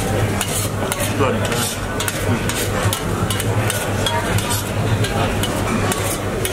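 Metal spoons and forks scraping and clicking against stainless steel plates as rice is shovelled up quickly, with many short scrapes and clinks, over a steady low hum.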